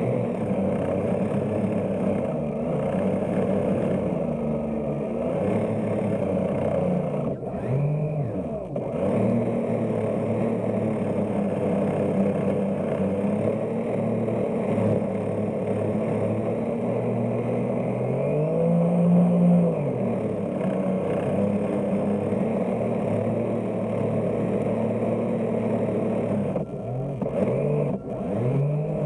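Running drive of a radio-controlled model pusher tug, close up. It hums steadily, with its pitch rising and falling as the throttle changes; the clearest rise and fall comes about 18 to 20 seconds in.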